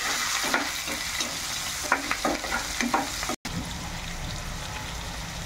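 Chopped onions sizzling in hot oil in a frying pan, with a spatula scraping and stirring them for the first three seconds or so. The sound breaks off for an instant, then the sizzle carries on steadily with no stirring.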